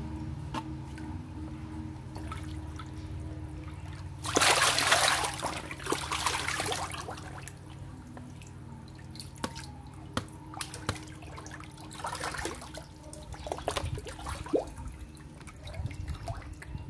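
Clarias catfish splashing at the surface of a cement tank as they crowd together, with a loud burst of splashing about four seconds in and another around six seconds. After that come scattered small splashes and drips over a steady low hum.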